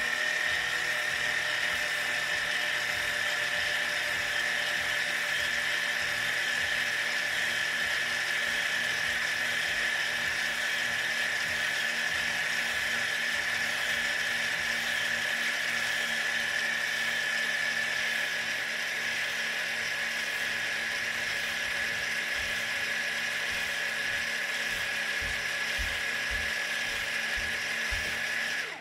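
Electric parking-brake servomotors on Audi A7 brake calipers running steadily, a high gear-motor whine that drifts slightly lower as they drive the caliper pistons outward. It cuts off suddenly at the end of the stroke.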